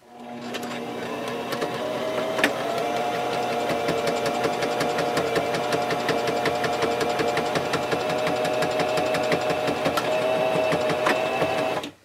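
Singer Talent electric sewing machine running steadily, stitching a seam through quilted fabric and batting, with a fast, even run of needle clicks over its motor hum. It speeds up over the first second and stops abruptly near the end.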